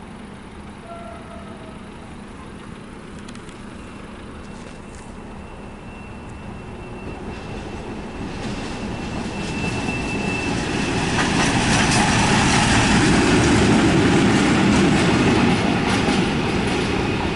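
A train approaching along the line, its rumble and wheel noise growing steadily louder and peaking in the last few seconds. A thin, high, steady tone sounds for several seconds in the middle.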